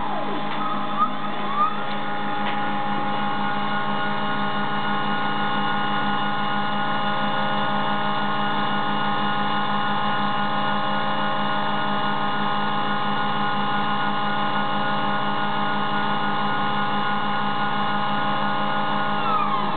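Stepper motors of a CNC Stepperhead tool grinder whining over a steady motor hum as the diamond wheel makes a slow grinding pass along an end mill's flute while the cutter is turned to follow the spiral. The whine rises in pitch about a second or two in as the axes get under way, and falls near the end as the pass finishes. Two short clicks come about a second in.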